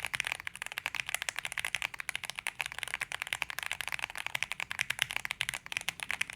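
Fast, continuous typing on a Gerald65 mechanical keyboard with stock Wuque Studios Black tactile switches, a POM plate, a stacked acrylic case, a tape mod and PBT double-shot ASA-profile keycaps: a rapid, even stream of keystroke clacks.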